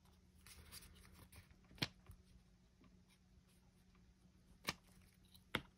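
Quiet handling of paper and small craft supplies on a tabletop: a faint rustle of paper, then three sharp light clicks, the first about two seconds in and two more close together near the end.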